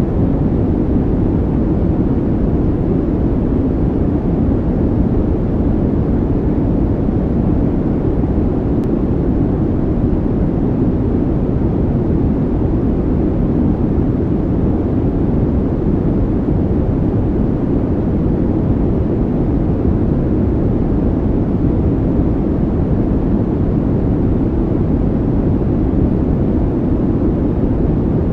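Steady low rumbling noise, even and unchanging throughout: an added calming ambient sound track.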